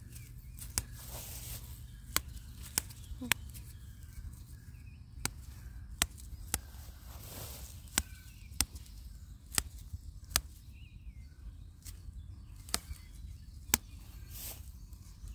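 Sharp clicks at irregular intervals, about one a second, with a few brief rustles, over a low steady rumble.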